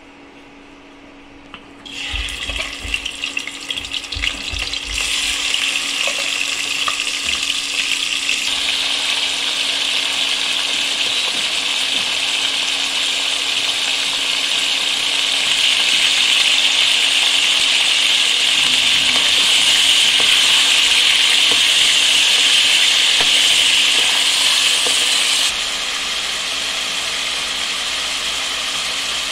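Raw chicken pieces going into hot sunflower oil in a pan and frying: a sudden start with a few low knocks as the pieces go in. Then a steady sizzling hiss builds, grows louder, and drops back a little near the end.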